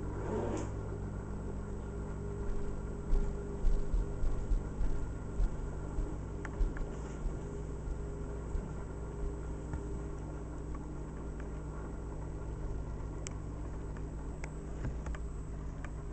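Steady low mechanical hum, with a cluster of low thumps between about three and five and a half seconds in and a few faint ticks later.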